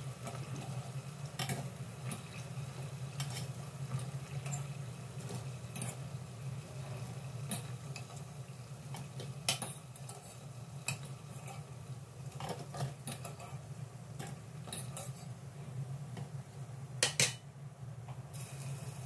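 A metal fork clinking against a stainless steel saucepan and a metal steamer basket as fried banana turon are lifted out of hot oil, a sharp tap every second or two with a loudest pair near the end. Under it, frying oil sizzles softly over a steady low hum.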